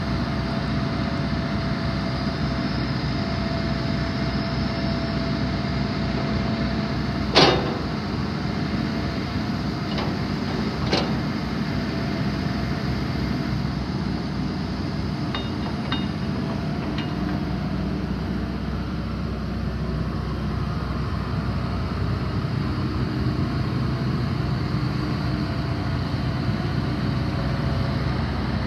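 Hitachi ZX210LC-3 hydraulic excavator's diesel engine running steadily as the machine works its hydraulics and turns. A sharp metallic clank sounds about seven seconds in, with lighter knocks a few seconds later.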